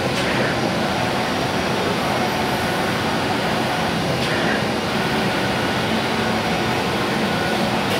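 A MultiCUT flatbed CNC cutting table running, giving a steady mechanical noise with a low hum as its cutting head travels across the sheet.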